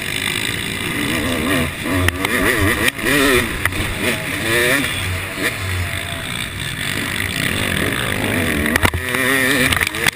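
Yamaha YZ250 two-stroke single-cylinder motocross engine revving hard and dropping off again and again as the throttle is worked and gears change, with a few sharp knocks near the end.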